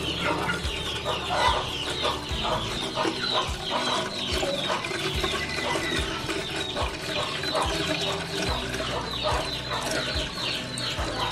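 A flock of chicks peeping, many short falling cheeps a second overlapping without a break, with hens clucking underneath.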